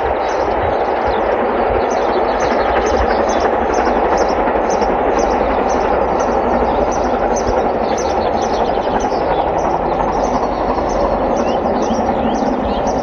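LMS Coronation Class Pacific steam locomotive working toward the listener, still unseen: a steady, continuous rushing roar. Birds sing over it, with repeated high notes throughout.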